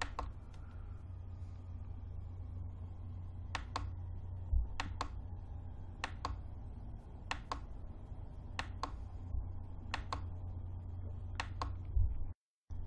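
Computer mouse button clicking: about seven quick press-and-release double clicks, a little over a second apart, over a steady low hum. The sound cuts out briefly near the end.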